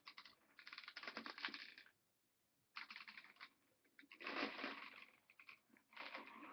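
Faint, rapid clicking and rattling in several short bursts with gaps between, like small hard objects being handled.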